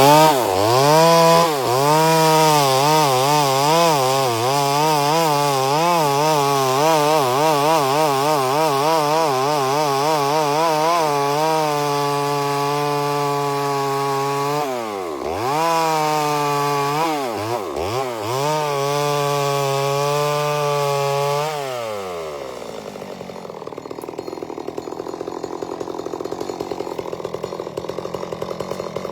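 Chainsaw running at full throttle while cutting, its pitch wavering under load and dipping sharply twice past the middle. About three quarters of the way through the revs fall away and it drops to a quieter, rapidly pulsing idle.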